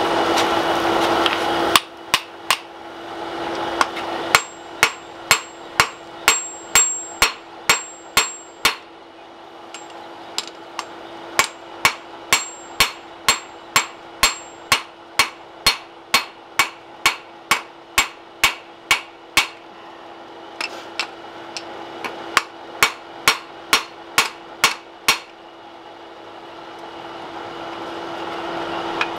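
Blacksmith's hammer striking a hot wrapped-eye axe blank on a steel anvil to even out its cheeks. The blows come in a steady run of about two a second, each with a bright ring. There is a short pause a little past the middle, then a further run of blows. A steady rushing noise is loud for the first couple of seconds and builds again near the end.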